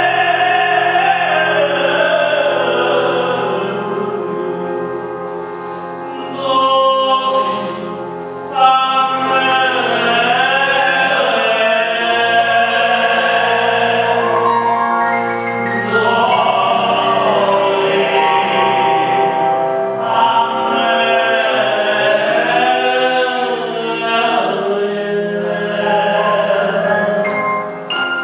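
Male voices singing a Jewish song together live, holding long notes with a wavering vibrato, in a large reverberant hall.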